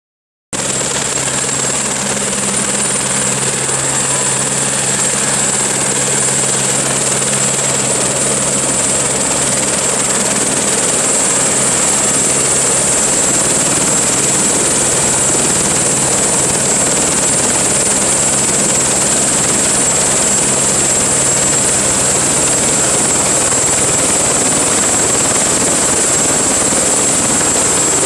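Eurocopter AS350 helicopter running at ground idle with its rotor turning, a steady high turbine whine over the constant rush and hum of engine and rotor.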